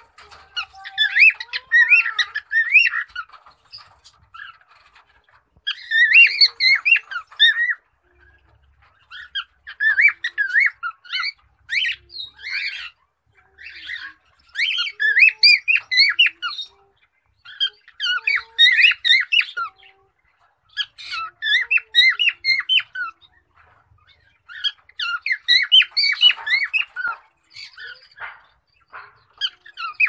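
Male cockatiel singing: phrases of rapid warbling chirps and whistles, each lasting a few seconds, with short pauses between them.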